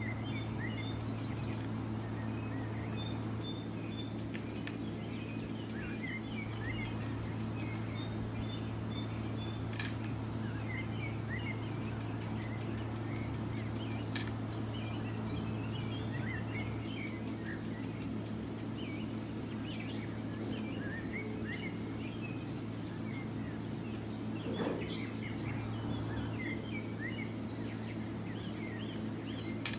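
Small birds chirping over and over, short quick chirps, over a steady low hum. A couple of sharp clicks stand out, about a third and half of the way through.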